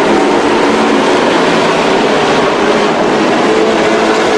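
Engines of a pack of dirt-track race trucks running hard at racing speed, several engines blended into one loud, steady drone whose pitches drift as the trucks go around the oval.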